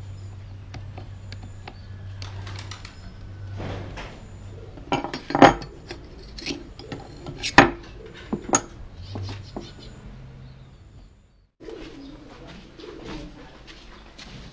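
Metal hand tools handled on a wooden drill press stand: faint clicks at first, then a few sharp metallic knocks and clinks in the middle. A moment of silence comes about eleven seconds in, then quieter handling of wood.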